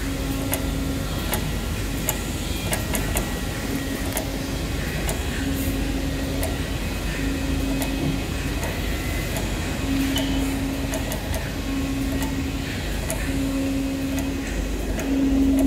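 CNC flatbed knife cutting machine cutting blind fabric: a steady low hum with a tone that starts and stops every second or so as the cutting head moves and cuts, and scattered light ticks.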